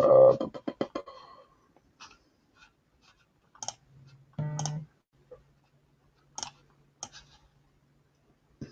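Clicks from a computer keyboard and mouse: a quick run of clicks about half a second in, then single clicks spaced a second or more apart.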